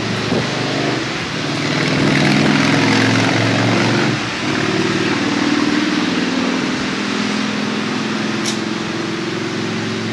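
Steady rain hiss with a motor vehicle engine droning underneath, its drone dipping briefly about four seconds in. There is one sharp tick near the end.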